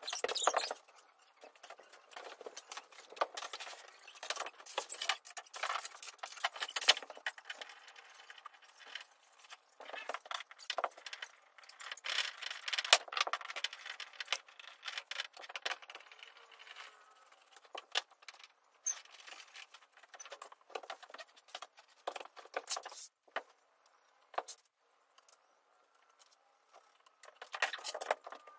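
Wooden cat-tree parts (pine panels and posts) being handled and fitted together: irregular sharp knocks, clacks and scrapes of wood on wood and on the parquet floor, with light rattling.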